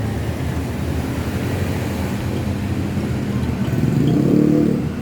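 Motor vehicle engine noise: a steady low rumble, with an engine growing louder from about three and a half seconds in and loudest near the end, as a vehicle passes close by.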